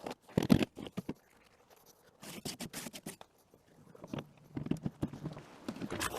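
Irregular scraping and patting of a hand tool working freshly poured wet concrete, in short bursts with brief pauses between them.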